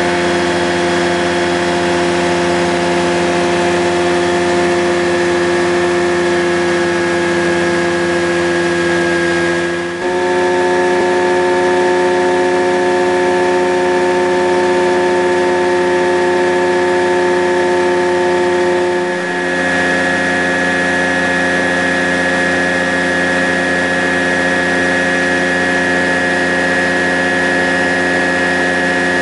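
Rans Coyote ultralight's engine and propeller running in cruise flight, heard from inside the cockpit as a loud, steady drone. Its pitch steps up abruptly about ten seconds in and back down about nine seconds later.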